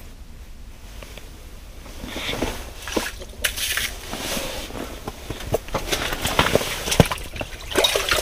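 A fish being hand-lined up through an ice hole and landed on the ice: after a quiet start, from about two seconds in, water splashing at the hole, line and clothing rustle, and a run of knocks and slaps as the fish comes onto the ice.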